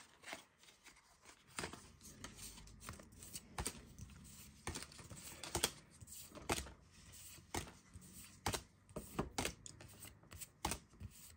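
A stack of One Piece Card Game trading cards being flipped through by hand, each card slid off the front and tucked to the back: light card-on-card clicks and rustles about once a second at irregular intervals.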